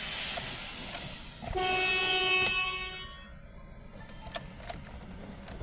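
A steady hiss, then a horn sounds once, a single steady note lasting about a second. A few faint clicks follow near the end.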